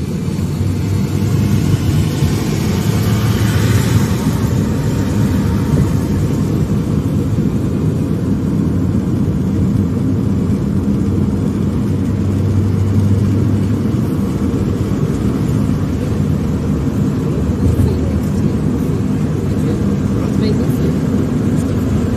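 Car road noise heard from inside the cabin while driving: a steady low rumble of engine and tyres. A louder hiss swells and fades about two to four seconds in.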